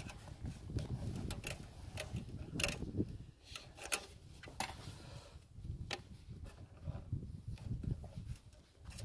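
Steel fence wire from a RedBrand woven wire fence clicking and scraping in irregular sharp ticks as it is pulled tight and wrapped by hand around a wooden post, over a low rustle of clothing close to the microphone.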